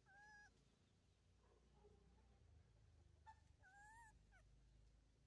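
Baby monkey giving two faint, short, wavering squeaks, one at the start and one about four seconds in.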